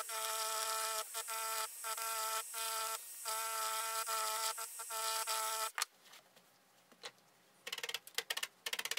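Handheld electric needle felting machine running with a steady hum as its needles punch the wool of a dog ear flat. The hum dips briefly several times and cuts off about six seconds in. A rapid, even ticking starts near the end.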